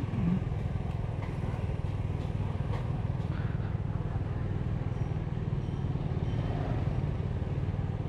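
A motorbike running steadily as it rides along, a continuous low rumble with faint street noise over it.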